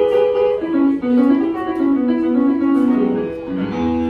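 Keyboard music playing a slow melody of held notes that step up and down.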